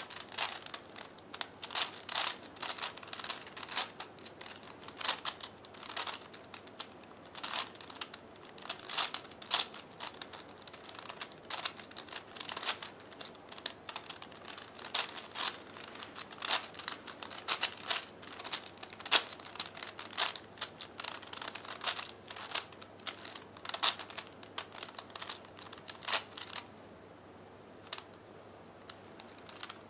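Plastic clicking and clacking of a 5x5x5 V-Cube puzzle's layers being turned in quick, irregular runs. The turns thin out to a few single clicks near the end.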